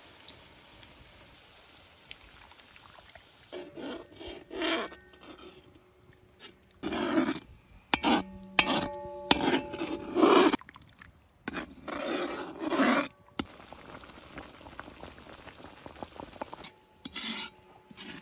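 A metal slotted spoon scraping and stirring in a large metal cauldron of cream sauce, in irregular strokes that start about three and a half seconds in. The cauldron rings with each stroke. Before that comes a faint pour of cream into the pot.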